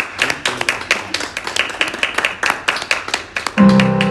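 A quick, uneven run of sharp taps and claps from a performer's feet and hands. About three and a half seconds in, a loud sustained chord on an electric keyboard comes in.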